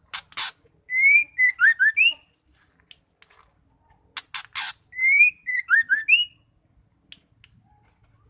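Female white-rumped shama calling: two short harsh notes followed by a quick run of rising whistled notes, the phrase given twice about four seconds apart.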